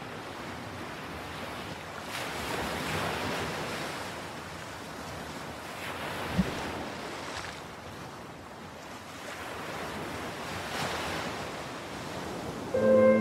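Sea waves washing in slow swells that rise and fall every few seconds, with a brief thump about halfway through. Music with held notes comes in just before the end.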